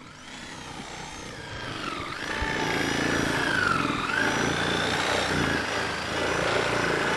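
An engine running and revving, its pitch wavering up and down, growing louder over the first couple of seconds.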